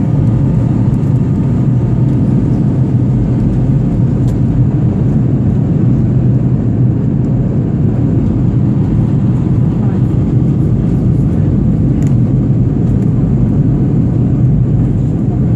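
Airplane in flight: a steady, loud low rumble of engine and airflow noise with a constant low hum, unchanging throughout.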